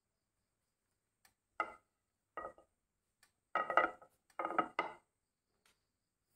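A spoon clinking and knocking against a dish, about six short hits bunched in the second half, as mustard seeds are measured out for tempering.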